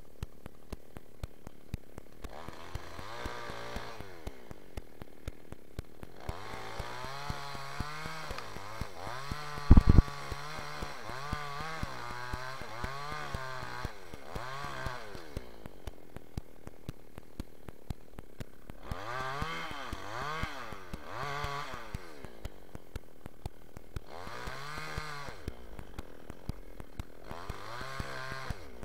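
Two-stroke New West 628 chainsaw cutting into rain tree wood, the engine revving up and falling back again and again as the chain bites and eases off between cuts. A sharp knock about ten seconds in is the loudest sound.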